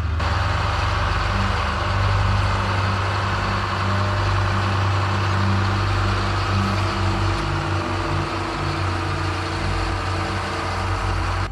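Heavy diesel machine engine running steadily under a dense rushing, clattering noise.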